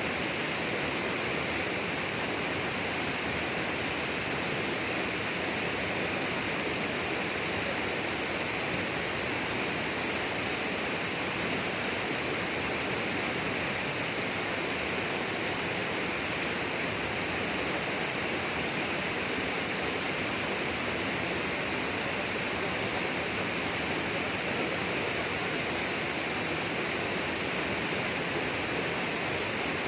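Steady, unbroken rushing of flowing water, such as a rainforest stream or waterfall.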